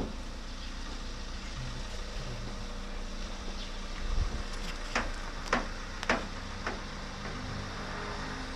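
A steady low mechanical hum, with a dull thump about four seconds in and then four sharp clicks and taps of the crack-repair tool being fitted to the windshield glass.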